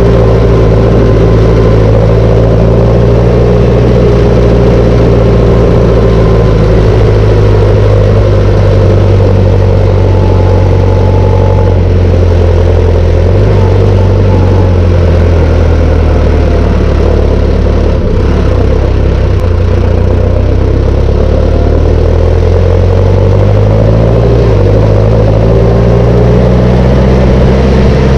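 Deutz-Fahr Agroplus 95 tractor's diesel engine running steadily under way at road speed, loud and close, with a thin whine above the engine note. The engine speed dips and shifts briefly a few times partway through.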